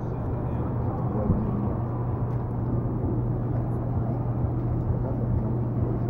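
Outdoor wind noise on the microphone over a steady low hum, with faint chatter of people's voices in the background.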